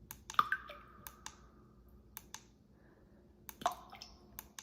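Plastic push-buttons on a white noise machine being pressed repeatedly, a series of sharp clicks, several in close pairs like press and release, as the light's brightness is stepped.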